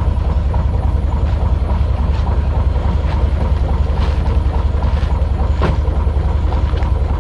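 Narrowboat diesel engine running steadily at idle, a low, even chugging with a few faint clicks over it.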